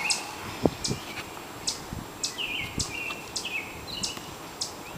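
Outdoor birdsong: short high chips repeated about every half second, with a few slurred, downward-sliding calls.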